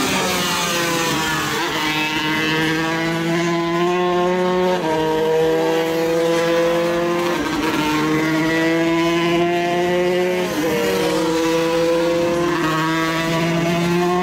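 125cc racing motorcycle engine at full throttle, its pitch climbing and dropping back several times as it goes through the gears.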